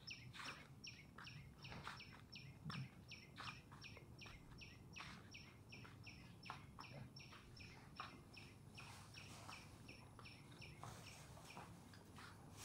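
A bird calling a steady run of short, high notes, each sliding downward, about three a second, faint.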